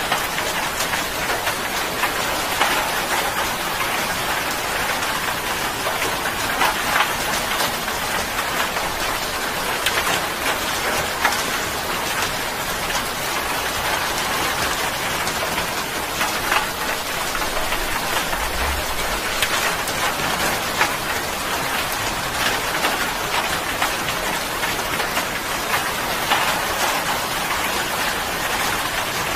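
Steady rain falling: an even hiss with many scattered, louder drop hits.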